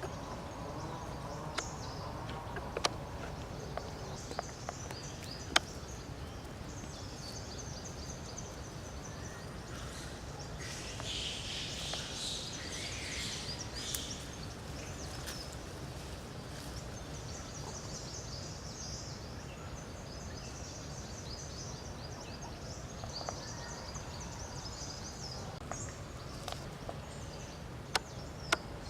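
Outdoor forest ambience: a steady low rumble with repeated high chirping calls throughout, busiest between about 11 and 14 seconds in, and a few sharp clicks or snaps scattered through it.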